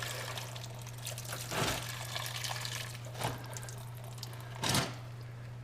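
Windshield washer fluid running and dripping out of a 2007 BMW 335i's washer reservoir into a catch container after the washer pump has been pulled from its grommet. Three short splashes or knocks break in about one and a half, three and nearly five seconds in, the last the loudest.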